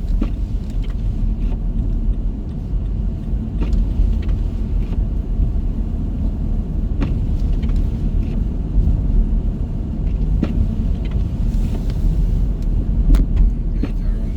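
Steady low rumble of a car on the road, with a few light clicks.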